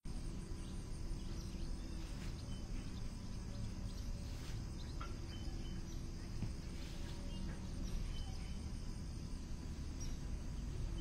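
Steady ambient background: a low rumble with a continuous high insect-like chirring, like crickets, and a few faint taps scattered through.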